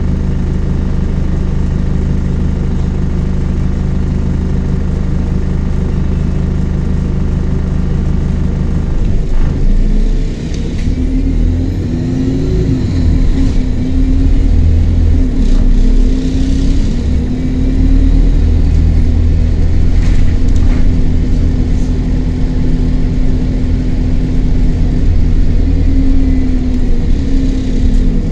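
Diesel engine of London bus 36656, heard from inside the saloon: it idles steadily, then about nine seconds in it revs up as the bus pulls away, its pitch rising and dipping as it accelerates.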